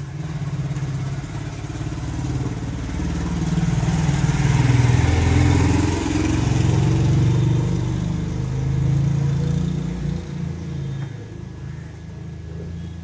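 A motor vehicle engine running close by, a low rumble that swells to its loudest mid-way and eases off near the end.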